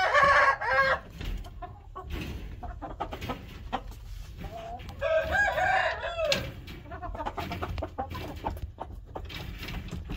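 Rooster crowing twice: one crow is already under way at the start and ends about a second in, and a second crow follows about five seconds in.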